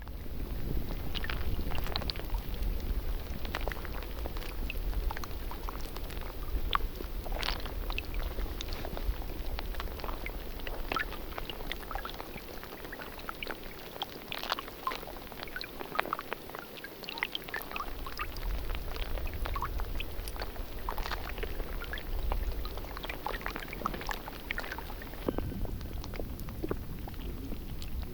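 Water trickling and dripping, with many small irregular drips and gurgles over a low rumble.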